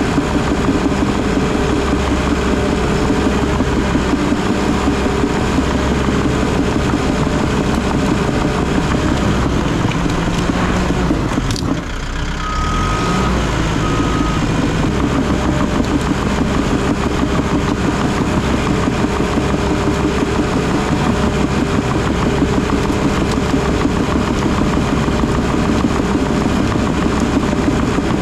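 Diesel engine of a heavy earthmoving machine running steadily. There is a brief drop about twelve seconds in, followed by two short beeps.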